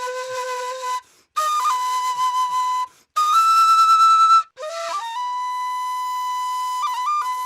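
Washint, the Ethiopian end-blown bamboo flute, playing breathy held notes with brief breaths between phrases. About two-thirds of the way in it slides up into one long steady note, then breaks into quick ornamental turns near the end.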